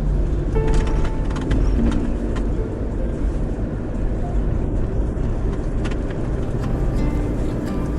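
Road and engine noise of a camper van driving, a steady low rumble with scattered light clicks.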